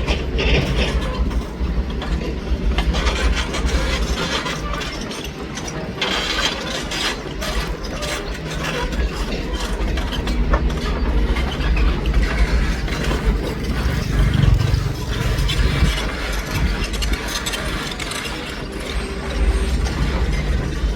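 Komatsu PC200 hydraulic excavator's diesel engine running steadily under work, with a loud low rumble and repeated metallic knocks and clanks from the machine.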